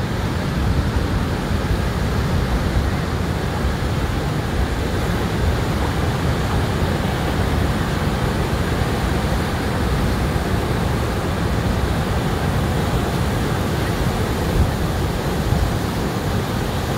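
Pacific Ocean surf breaking and washing up a sandy beach, a steady rushing noise, with wind buffeting the microphone as a low rumble.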